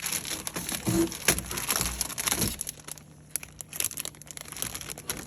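Packaging being crumpled and rustled: dense crinkling and crackling for about three seconds, then lighter scattered crackles.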